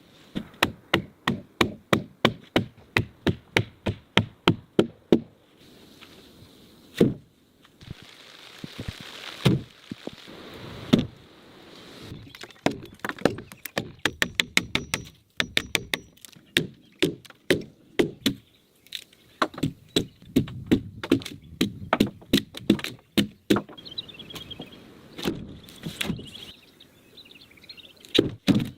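Axe chopping into a log in quick runs of strokes, about three sharp blows a second, with short pauses between runs.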